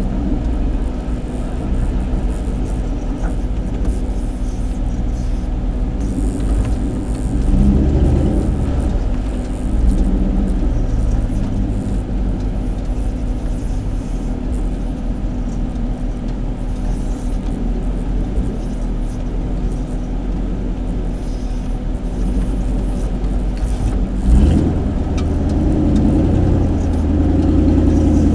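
Off-road vehicle's engine running steadily while driving, with the engine picking up briefly about eight seconds in and again more strongly near the end.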